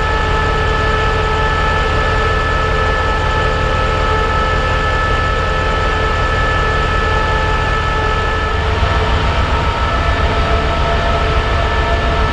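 CRRC CDA5B1 diesel-electric locomotive idling, a steady engine rumble with several steady whining tones over it. About eight and a half seconds in, a deeper rumble with a pulsing beat joins.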